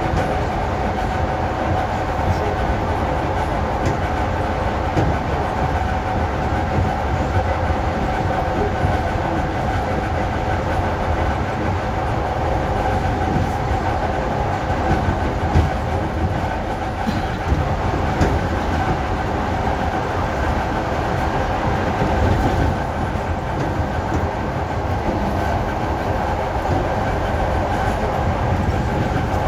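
ED4M electric multiple unit running under traction power: a steady hum of the traction motors and gearing at an even pitch over the rumble of wheels on the track.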